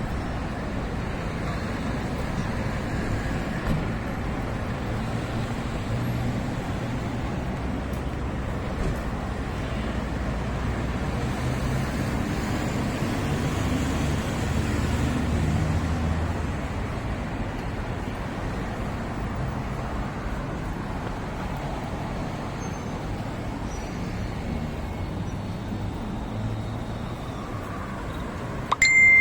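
Steady road traffic rumble, swelling as a vehicle passes about halfway through. Just before the end comes a sudden sharp sound with a short high beep.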